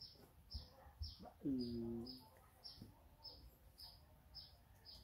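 A bird chirping over and over, about two short high notes a second, each dropping slightly in pitch. About a second and a half in comes a louder, low call that slides down and then holds for under a second.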